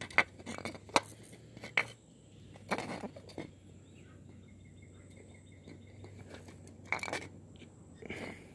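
Handling noise from a clear plastic container held close to the microphone: a few sharp clicks and knocks in the first two seconds, then bursts of rubbing and rustling about three and seven seconds in.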